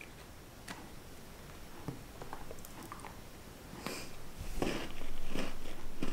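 Small rustles and clicks of a chocolate wrapper being handled, with faint chewing. From about four seconds in, a louder low rumble of handling noise on the microphone comes in.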